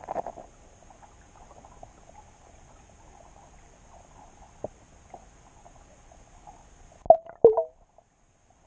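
Muffled underwater sound picked up by a submerged camera: faint crackling and scattered clicks, a short crackly burst at the start, and two loud knocks close together about seven seconds in, each with a brief ringing tone.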